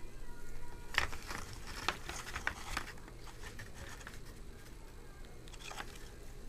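Firecrackers being dropped and handled into place: a quick run of light clicks and paper rustling in the first few seconds, then quieter handling with a couple more clicks near the end.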